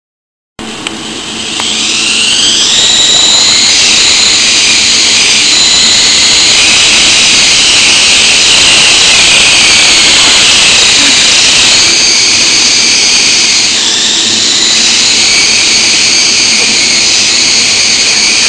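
Small coaxial RC helicopter's electric motors and rotors whining as they spool up over the first couple of seconds, then holding a steady high whine while it hovers, with small shifts in pitch and a brief dip about fourteen seconds in.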